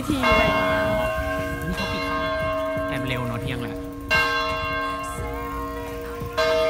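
A large cathedral tower bell tolling, struck three times with uneven gaps, each stroke ringing on and slowly fading.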